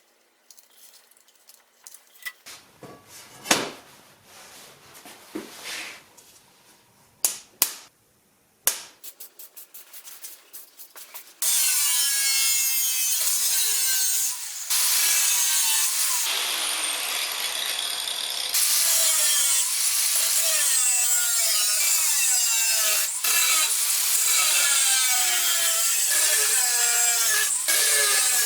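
Scattered clicks and knocks of handling, then, about eleven seconds in, a power tool starts grinding or cutting the steel of a saw blade: a loud, continuous noise with a whine that wavers up and down in pitch, dropping out briefly twice.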